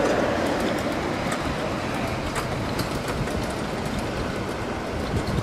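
Ride-on miniature railway train rolling past: a steady rumble of its wheels on the track, with scattered light clicks.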